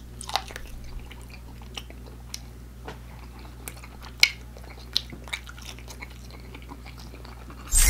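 Close-miked chewing of a crispy fried chicken nugget: scattered crunches and wet mouth clicks, the sharpest about four seconds in. Near the end a loud sound effect cuts in suddenly.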